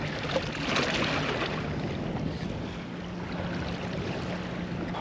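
Wind on the microphone and sea water washing around a small boat, an even rushing noise; a faint steady low hum comes in about halfway through.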